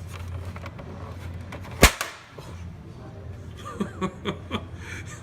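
A single sharp bang, short and loud, a little under two seconds in, over a low steady hum.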